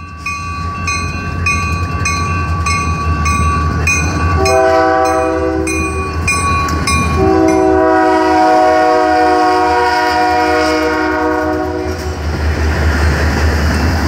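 Rocky Mountaineer diesel locomotive passing close by with its bell ringing about twice a second through the first half, over the steady drone of its diesel engine. It sounds its air horn twice: a short chord about four seconds in, then a long blast lasting about five seconds. Near the end the rumble of the passing train takes over.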